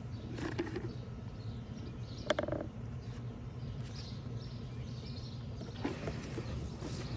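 Hands digging through soil in a deep bucket: soft scraping and rustling, with a brief louder sound about two seconds in, over a steady low hum.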